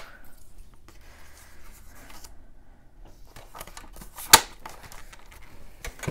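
Sliding-blade paper trimmer cutting a thin strip off a sheet of patterned paper, a faint scraping run of the blade over the first couple of seconds, with a click as it starts. About four seconds in comes a single sharp click, the loudest sound, and a softer click near the end.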